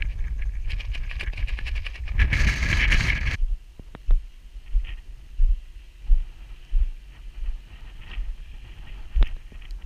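Wind buffeting the microphone for the first three seconds or so, cutting off abruptly. After that, a hiker's footsteps on a rocky gravel path, about one every 0.7 s, with a few sharp clicks.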